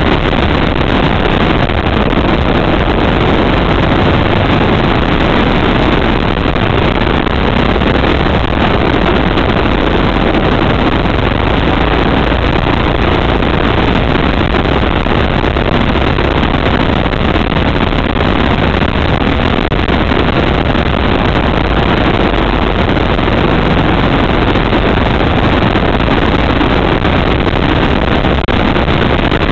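Go-kart engine running continuously at racing speed, heard from a camera mounted on the kart: a loud, steady engine-and-wind noise with no clear rise and fall.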